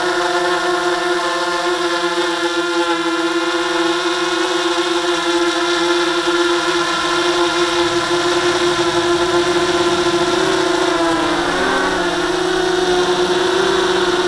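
Small quadcopter drone's motors and propellers humming at one steady pitch, with a brief dip and wobble in pitch late on.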